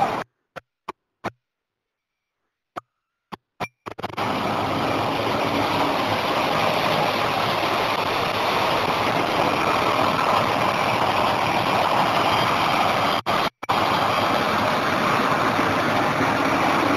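City bus engines running amid street traffic: a steady, dense noise that sets in about four seconds in, after a few brief clicks, and cuts out for a moment about thirteen seconds in.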